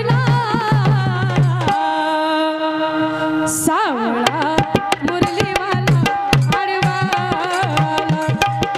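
A woman singing a Marathi gavlan folk song into a microphone over a hand-drum accompaniment, with sharp percussion strokes throughout. About two seconds in she holds one long note before the melody moves on again.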